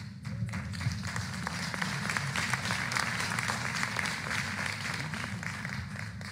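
Audience applauding, many hands clapping together; the applause builds just after the start and tapers off near the end.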